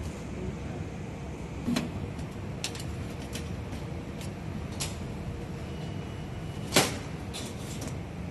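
About six sharp clicks and knocks from parts being handled, the loudest about two-thirds of the way through, over a steady low hum.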